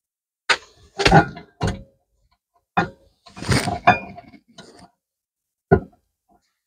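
Metal tools and brake parts clanking and clinking in handling: about half a dozen sharp knocks, some with a short metallic ring, separated by silent gaps.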